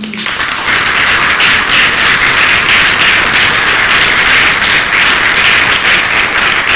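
Audience applauding: dense, steady clapping that breaks out suddenly and holds at an even level.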